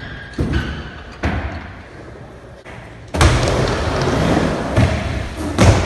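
Two separate thumps, then from about three seconds in the steady rumble of skateboard wheels rolling over the floor, with two more knocks near the end.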